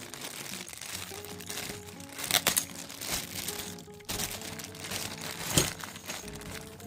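Plastic packaging crinkling and crackling as items are unboxed, over soft background music. Two louder crackles stand out, one about two and a half seconds in and one later on.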